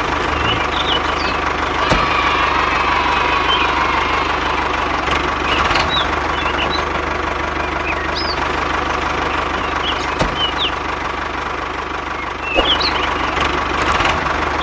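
Tractor engine running steadily at a low idle-like beat, with short high chirps now and then.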